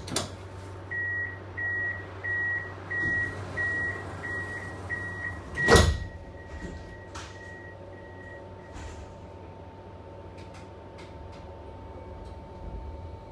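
Tram door-closing warning beeps: a steady run of short, high beeps about one and a half a second. A loud thump about six seconds in is the doors shutting, after which the beeps fade out and a faint steady hum carries on.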